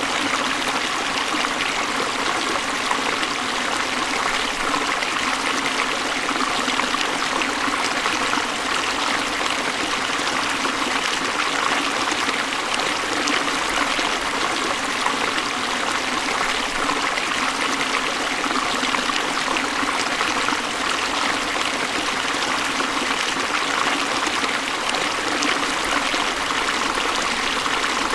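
River water flowing over and around stones, a steady, unbroken rushing and babbling.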